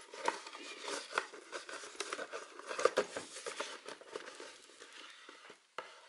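Cardboard fold-out Blu-ray box set being handled and folded shut: irregular rustling and soft knocks of card against card and fingers, with a sharper tap about three seconds in.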